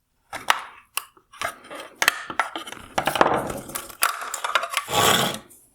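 Hard plastic cracking and clattering as the plastic-welded tabs holding a tail light's circuit board are snapped and the board is worked out of the housing. There is a string of sharp clicks and cracks, with a longer rattling scrape about five seconds in.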